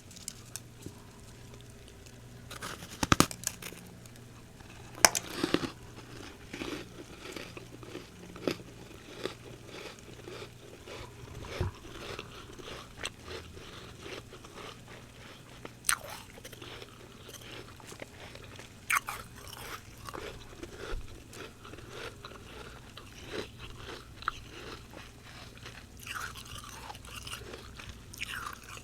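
Close-up crunching and chewing of humidifier frost being bitten and eaten. The sharpest, loudest bites come about three and five seconds in, followed by a steady run of softer crackling chews.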